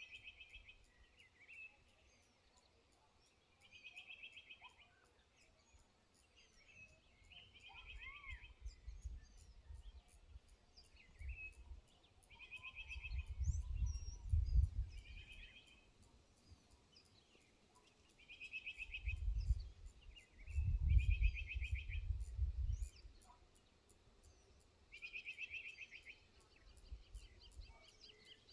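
A bird repeatedly sings a short trilled phrase, each about a second long, every few seconds, with faint chirps between. Low rumbling gusts swell up several times from about a third of the way in, loudest past the middle.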